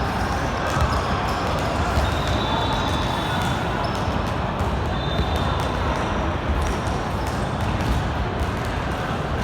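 Basketball game: the ball bouncing on the court, with brief high squeaks, over steady background chatter.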